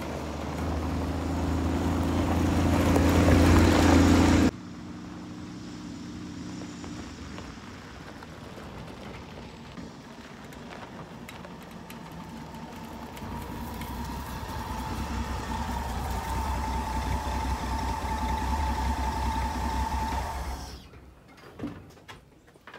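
Old van's engine running as it drives by, growing louder until it cuts off abruptly about four and a half seconds in. The engine then comes back quieter and builds again with a steady whine, stopping shortly before the end.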